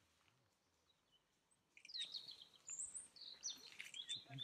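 Wild songbirds singing: after near silence, a string of high chirps and whistles starts about two seconds in, one of them a quick rising note.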